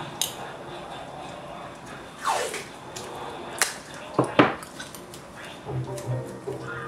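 Handling noise from small parts and masking tape on a wooden desk: a few sharp clicks and knocks, the loudest about four seconds in, and a brief falling swish near the middle. Background music comes in near the end.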